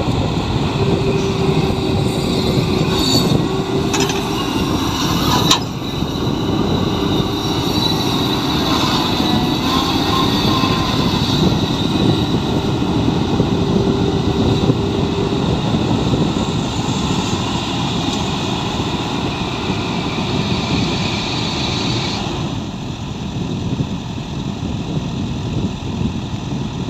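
CAT excavator working: its diesel engine running steadily under load with a steady whine over it. A couple of sharp knocks come about four and five and a half seconds in, and the sound eases off a little near the end.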